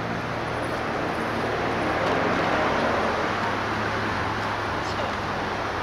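Harbour ambience at night: a steady low hum under a broad wash of rumbling noise like distant traffic, swelling a little about two seconds in.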